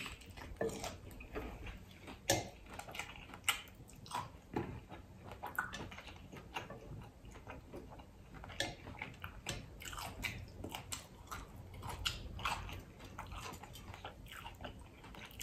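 Close-up eating sounds: biting into and chewing a crunchy hard-shell taco, with many short sharp crackles of the shell.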